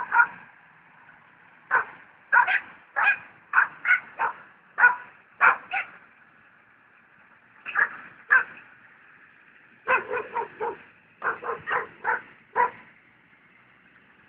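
A dog barking repeatedly in short, sharp barks, coming in irregular runs, with a quick string of barks about ten seconds in.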